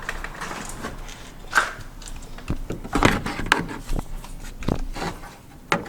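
Scattered clicks and knocks as the plastic wheel well liner and its small fastener hardware are handled by hand, about seven separate taps spread irregularly over the few seconds.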